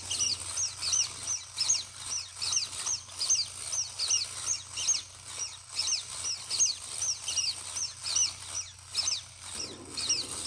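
1950s MM Japan tin wind-up Mechanical Accordion Bear toy running: its paper accordion squeaker gives short squeaks falling in pitch, about three a second, as the bellows pump. Beneath them is the faint clatter of the clockwork mechanism.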